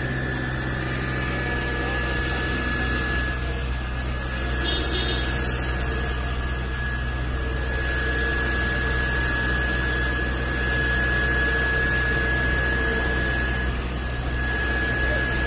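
A steady engine drone with a constant low hum and a thin, steady high whine, with no breaks or sharp sounds.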